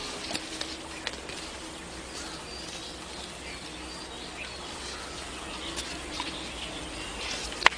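Outdoor ambience: a steady background hiss with faint bird chirps and insect calls. A single sharp click near the end.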